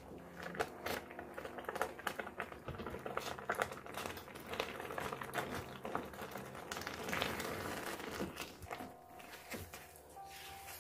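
Spatula stirring and scraping a purple yam and milk mixture in a nonstick pan: irregular wet slaps, squelches and scrapes as the ube halaya thickens.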